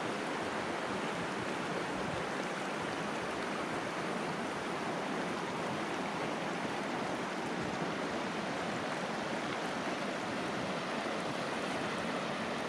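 Fast-flowing mountain river rushing over a rocky bed and around boulders: a steady, even rush of water.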